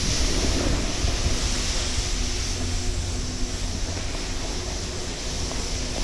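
Wind buffeting the camera microphone with a low rumble, over the steady hiss of a snowboard sliding on packed snow.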